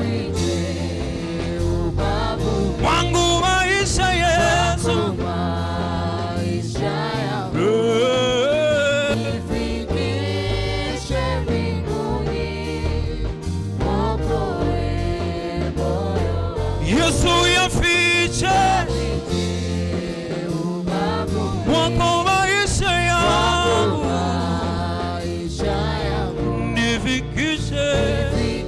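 A gospel vocal group singing a Swahili hymn over a steady bass accompaniment, without a break.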